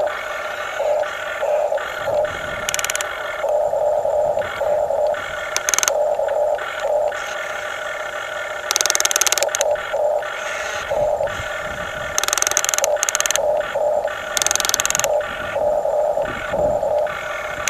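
Electric gear motors of a radio-controlled construction model whining in short stop-start runs, with several brief bursts of scraping or rattling.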